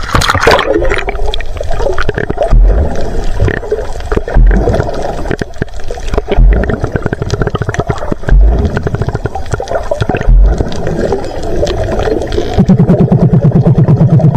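Splashing as an action camera goes under the sea surface, then the muffled underwater sound of water and bubbles with a steady crackle of fine clicks and low thumps about every two seconds. Near the end a loud low buzzing drone starts and keeps going.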